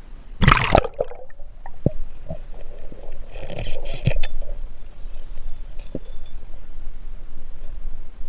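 A splash as the camera goes under the river surface about half a second in, then the muffled low rumble of an underwater microphone, with a few sharp knocks and a brief bubbling hiss.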